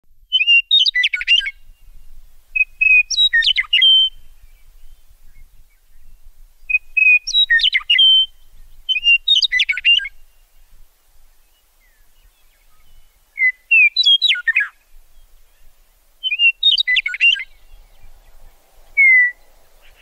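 Meadowlark singing: six short song phrases a few seconds apart, each opening with clear whistled notes and running into a quick jumbled warble, then a single falling whistle near the end.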